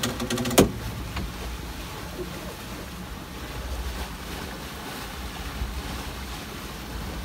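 Sailboat under sail at speed on a beam reach: steady rush of water along the hull and wake, with a low rumble of wind on the microphone. A single sharp knock about half a second in.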